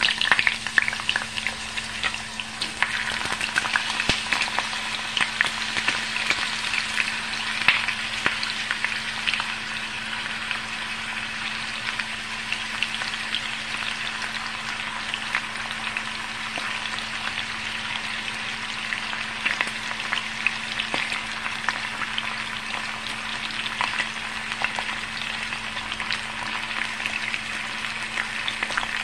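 Sliced raw potatoes sizzling and crackling in hot vegetable oil in a cast-iron skillet as they are laid in, with many sharp pops in the first several seconds, then settling into a steady sizzle.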